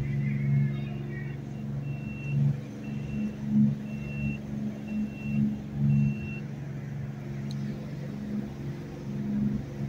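Boat engine running steadily under way, its drone swelling and fading in loudness as the hull rides the chop. About a second and a half in, six short high beeps sound, evenly spaced less than a second apart.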